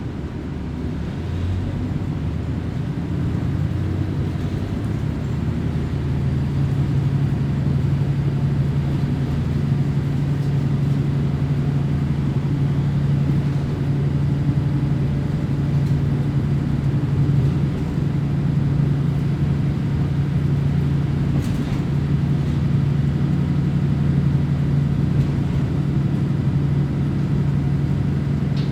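Diesel railcar engine under power, heard from inside the car over the rumble of the wheels on the rails. The engine drone grows louder over the first few seconds, then holds a steady, even hum.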